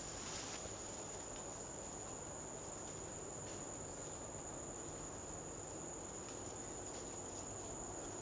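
Steady high-pitched whine of a single insect such as a cicada or cricket, unbroken throughout, over a faint low hiss of forest background.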